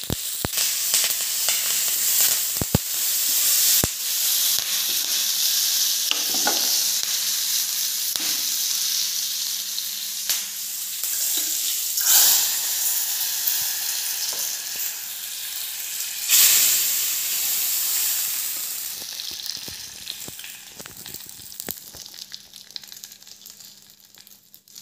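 Mustard seeds, dried red chillies and curry leaves sizzling in hot coconut oil, with a few sharp pops in the first few seconds. About twelve seconds in, the hot tempering is tipped into the dal curry and the sizzle surges loudly. It surges again a few seconds later, then fades away near the end.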